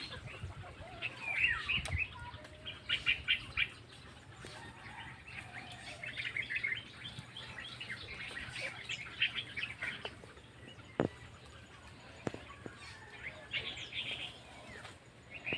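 Birds chirping in quick high runs that come and go several times, with two sharp clicks about two-thirds of the way through.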